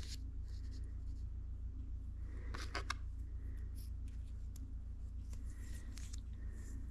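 Faint clicks and light scrapes of a steel transmission gear cluster and a small clip being handled, with two sharper clicks a little under halfway through, over a steady low hum.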